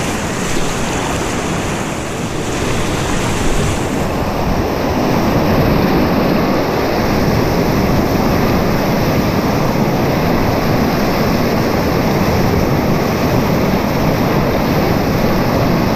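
Whitewater rapid rushing and splashing around a kayak's bow, a loud steady rush of river water. About four seconds in it turns deeper and a little louder as the boat runs into the waves.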